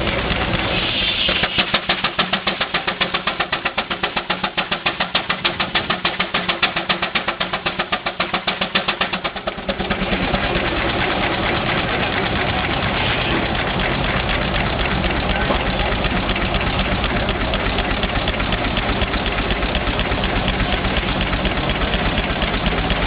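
Advance Rumely steam traction engine running belted to a sawmill, its exhaust beating in rapid, even chuffs for the first ten seconds or so. After that a steady, even noise takes over.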